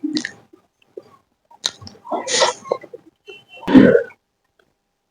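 Close-miked eating sounds while chewing a mouthful of chicken innards curry: irregular wet mouth noises and a sharp click. Just before four seconds comes the loudest sound, a deeper throaty one, after which the sound stops.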